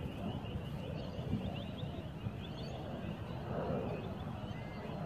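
Outdoor ambience of wind rumbling on the microphone, with birds chirping and twittering in quick short notes throughout and a few longer calls near the end.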